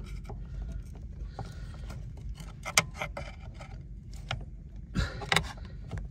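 A screwdriver prying at the steel pivot pin of a clutch pedal, making irregular metal clicks and scrapes, with one sharp click near the middle and a quick cluster of them about five seconds in.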